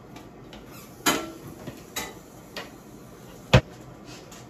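Kitchen utensil clinking and knocking against a mixing bowl a few times, about a second apart, with one heavy thump about three and a half seconds in.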